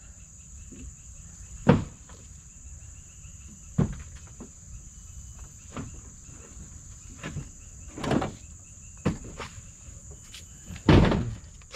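Steady high-pitched drone of insects such as crickets, with a few irregular thumps and scuffs, the loudest near the end.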